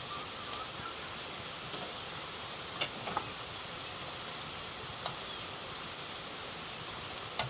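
Insects droning: one steady high-pitched tone over a steady hiss, with a few short clicks a little under three seconds in and again near five seconds.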